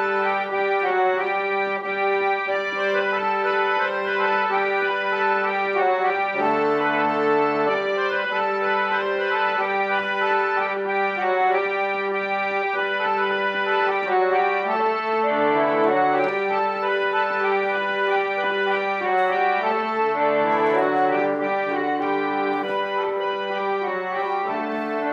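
Victorian-style reed organ (harmonium) played in slow, sustained chords, several notes held together and the chords changing every second or two.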